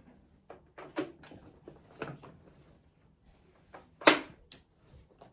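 Plastic vacuum cleaner tools and pipes being handled and fitted together: a few knocks and clatters, with the loudest sharp knock about four seconds in.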